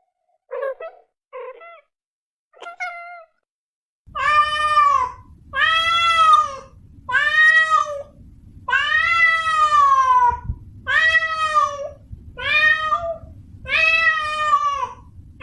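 Domestic cat meowing. First come three short, thin mews. From about four seconds in there is a run of about eight loud, drawn-out meows, each rising and then falling in pitch, over a low steady hum.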